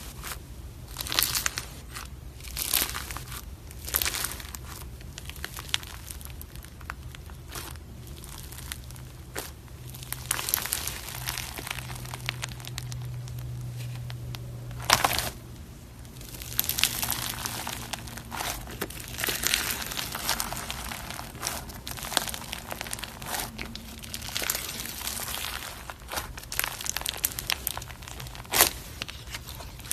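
Slime being squeezed, poked and stretched by hand, giving sticky crackles and sharp pops. The crackling comes thick in long stretches and sparser in between.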